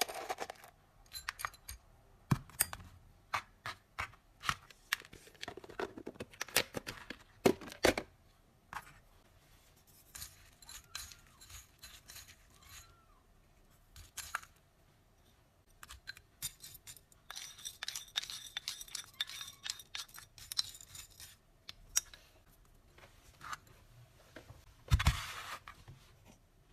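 Cat food being prepared by hand: a run of sharp clicks and snips, crinkling packaging in the middle, and a single thump near the end.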